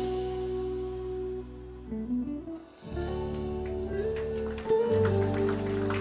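Outro music led by guitar. It thins out and drops away briefly about two and a half seconds in, then picks up again with a strong bass line and plucked notes.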